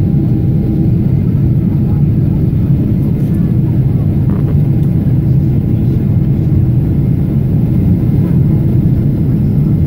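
Jet airliner cabin noise at a window seat beside the wing engine in flight: the steady, loud low rumble of the turbofan and rushing air, unchanging throughout.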